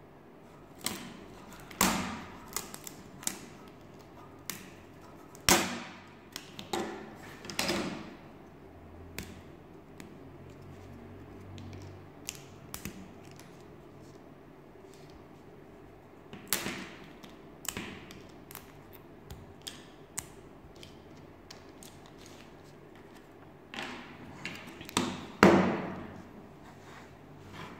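Laser-cut plywood parts of a wooden model pistol kit being handled and fitted together: scattered wooden clicks and knocks, a few of them louder, about two, five and a half and twenty-five seconds in.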